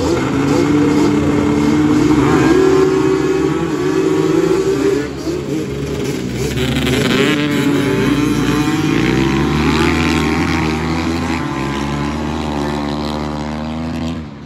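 A pack of two-stroke racing ATV engines revving hard together, several at once, their pitches rising and falling with throttle and gear changes. The sound drops off sharply just before the end.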